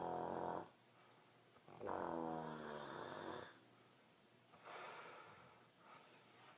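Snoring: a buzzing snore that cuts off just after the start, a second drawn-out snore about two seconds in whose pitch falls, then a softer, breathy breath about five seconds in.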